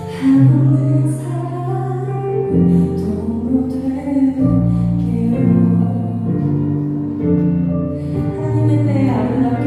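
Music: a slow song, with a voice singing over instrumental accompaniment in long held notes.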